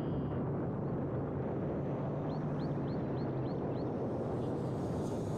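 Steady hum and rush of a 7-inch FPV quadcopter's motors and eight-blade propellers in flight, with wind noise. Midway, a bird gives a quick run of six rising chirps.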